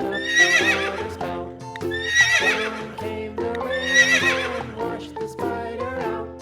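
Horse whinnying three times, about two seconds apart, each a shaky high neigh, over background music.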